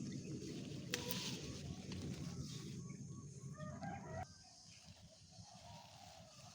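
A rooster crowing, its call rising in steps about three and a half seconds in, over a rough rustling noise that cuts off suddenly just after it. Faint bird calls follow.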